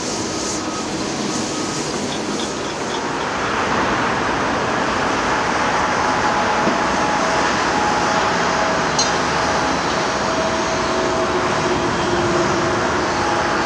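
Diesel construction machinery running steadily under a hiss of heavy traffic noise, growing louder about three and a half seconds in.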